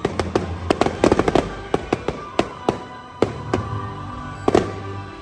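Aerial fireworks going off in the sky, with a rapid cluster of sharp bangs about a second in, then single reports roughly every half second. Music plays underneath.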